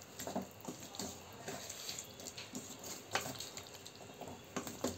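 Water poured from a tumbler into a kadai of boiled potatoes and green peas, splashing, with irregular clinks and knocks.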